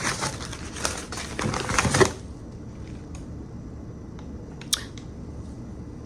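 Packaging rustling and crinkling as it is handled for about two seconds, then a few light clicks.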